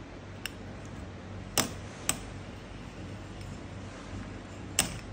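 Sharp metal clicks of a hex key against the socket-head screws in a steel chain sprocket's hub as the screws are turned in. Two loud clicks come about half a second apart in the middle and another near the end, over a steady low hum.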